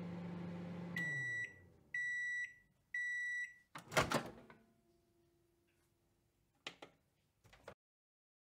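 Microwave oven running with a steady hum that winds down about a second in, followed by three beeps about a second apart that signal the end of cooking. About four seconds in comes a loud clunk as the door latch releases, and two faint clicks follow near the end.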